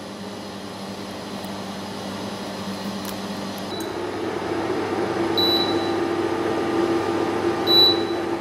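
Induction hob heating a saucepan of cream: a steady fan-like hum that grows louder, with a higher hum taking over about four seconds in. Two short high beeps come from the hob's controls.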